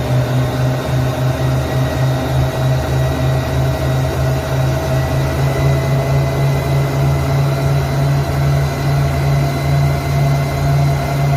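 Suzuki DF115 four-stroke outboard motor running steadily, with a whine over the engine drone that rises slightly in pitch as it goes.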